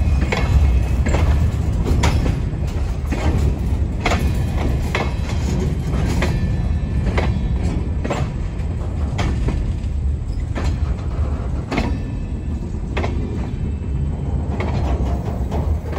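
Covered hopper cars of a freight train rolling past with a steady low rumble, their wheels clicking sharply over the rail joints about once a second.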